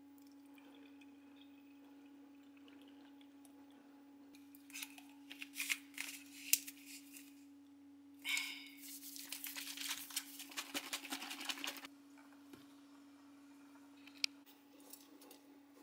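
Plastic Green's Pancake Shake bottle of pancake mix and milk being capped with a few clicks and scrapes, then shaken hard for about four seconds, the batter sloshing in quick strokes. A single sharp tap near the end, as the bottle is set down.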